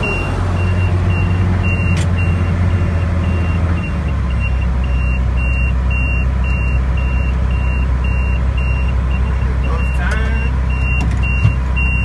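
Tractor engine running steadily, heard from inside the cab while it pulls a round baler; its low drone drops to a lower pitch about four seconds in.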